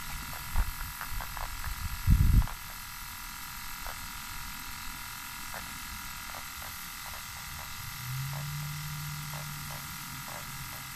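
Outdoor riverbank ambience: a steady buzzing drone with scattered short clicks, a single thump about two seconds in, and a low held tone lasting about two seconds near the end.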